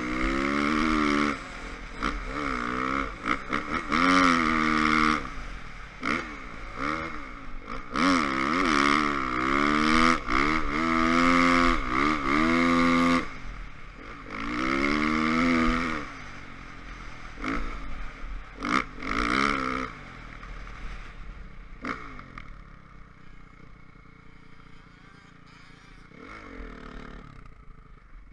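Honda CRF450 dirt bike's single-cylinder four-stroke engine revving hard in repeated bursts, its pitch climbing and dropping as the throttle opens and closes, heard from the rider's helmet. About twenty seconds in, it drops to low revs for the rest of the stretch.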